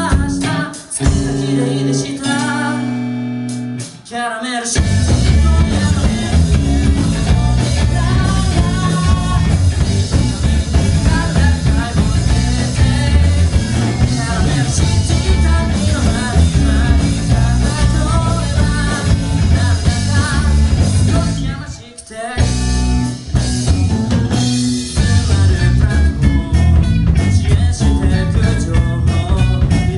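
Live rock band playing: electric guitar, bass and drum kit with a sung vocal. A sparse opening gives way to the full band about four seconds in, and a short break comes a little after two-thirds of the way through before the full band returns.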